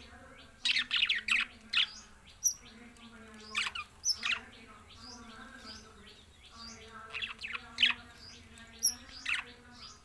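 Pet budgerigars chirping and warbling. Short, sharp chirps come in clusters about a second in, near four seconds and again near eight to nine seconds, over a soft, continuous chattering warble.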